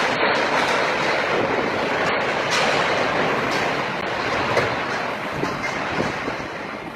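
Storm wind rushing hard, a loud steady noise that eases slightly toward the end.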